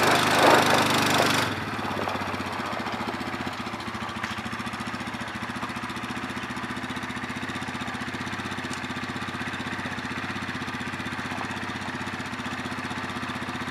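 Four-wheeler (ATV) engine running louder for the first second and a half, then settling to a steady idle.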